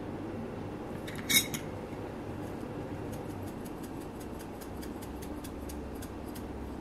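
Metal spoon mixing cooked rice in a stainless steel bowl: one sharp, ringing metallic clink about a second and a half in, then a run of light ticks and scrapes as the rice is stirred.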